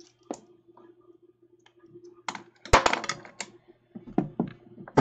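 Small clicks and knocks of a screwdriver and the metal robot being handled in a wooden box, with a cluster of sharper knocks and one hard knock about two and a half seconds in, over a faint steady hum.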